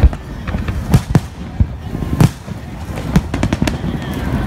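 Fireworks exploding overhead: irregular sharp bangs, some in quick succession, the loudest right at the start, about a second in and a little after two seconds.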